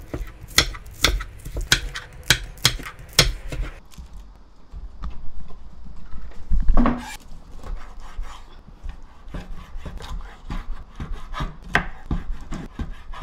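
Kitchen knife chopping green onion on a wooden cutting board: sharp knocks, two or three a second, for the first few seconds. Later, slower scattered knife knocks as squid is sliced on the board, with one louder thump about seven seconds in.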